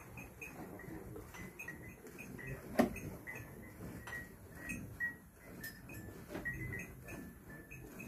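Milk squirting from a cow's teats into a part-full metal bucket as she is hand-milked, the strokes coming in a quick, even rhythm. One sharp knock about three seconds in.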